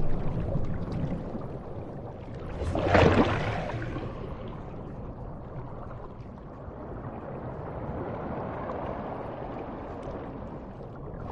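Underwater sound of the open sea: a steady wash of water noise, with one louder surging whoosh about three seconds in.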